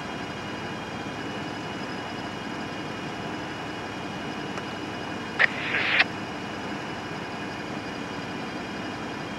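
Two Norfolk Southern diesel-electric locomotives idling with a steady hum. A brief, sharp burst of noise cuts in about five and a half seconds in and lasts about half a second.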